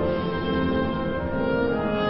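Symphony orchestra playing, many sustained instrumental lines sounding together at a steady level.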